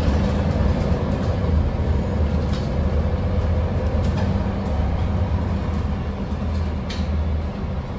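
Cabin noise inside a city bus: a steady low rumble from the engine and the road, with a few sharp light rattles or clicks from the bus's fittings.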